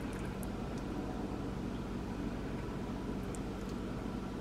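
A steady low machine hum with a hiss, and a few faint light clicks.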